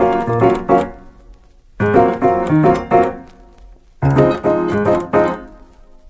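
Piano music: a short phrase of struck chords that repeats about every two seconds, each phrase fading out before the next begins.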